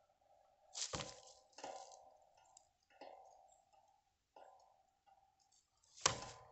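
A plastic jug full of water, hung from a metal pole, is struck by hand twice: a sharp smack about a second in and another near the end, each followed by a ringing knock. Between the two strikes the swinging jug knocks several more times, each knock ringing briefly and fading.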